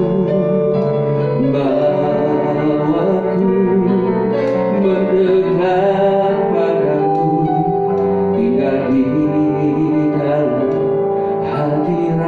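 Electronic keyboard playing a slow worship-song instrumental passage: held chords with a melody over them, the harmony changing every second or two.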